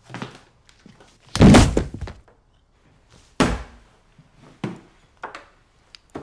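Sound effects of a violent struggle: two loud, heavy impacts about two seconds apart, the first the loudest, followed by a few lighter knocks.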